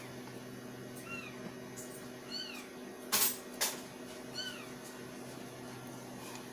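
A cat meowing repeatedly: short high calls, each rising then falling, every second or two. About three seconds in there is a brief loud burst of noise followed by a click.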